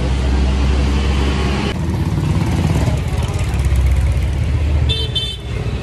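Street traffic noise: a steady low rumble of road vehicles, with two short high chirps about five seconds in.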